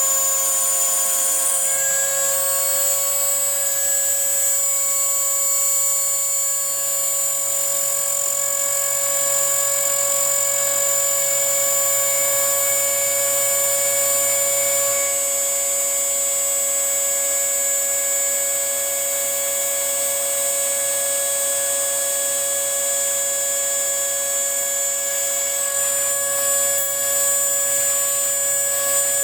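Homemade CNC router milling a printed circuit board: the spindle runs steadily with a high whine as the carbide bit cuts, while a lower stepper-motor hum shifts level about two seconds in, around halfway, and near the end as the machine's moves change.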